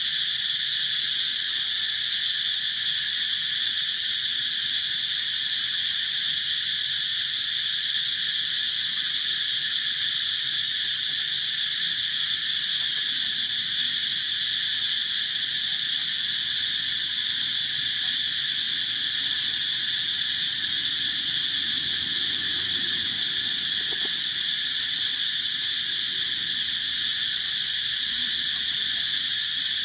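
Steady, high-pitched drone of a forest insect chorus that holds at one level without a break.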